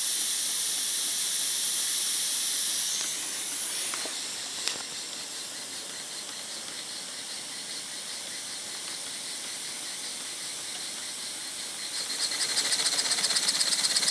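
Small vertical single-cylinder Sipp steam engine running on low-pressure steam: a steady steam hiss that drops and quietens about three to four seconds in as the pressure is backed down, with a single click just after. About twelve seconds in it grows louder, with rapid, even exhaust puffs, as the pressure is raised to about 5 PSI.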